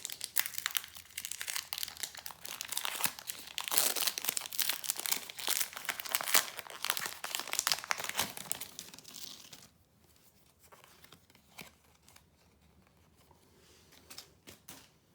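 Foil Pokémon booster pack wrapper crinkling and being torn open, a dense crackle for about ten seconds that then drops to faint rustles.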